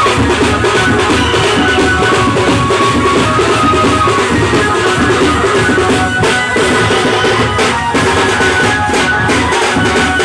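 Loud, continuous drumming from a band of large bass drums and smaller side drums beaten with sticks, with a thin high melody line over it.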